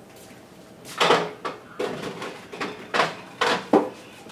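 A kitchen door being opened and shut while things are handled, likely a refrigerator door as a milk jug is fetched: five or six sharp knocks and clunks, with quieter moments between them.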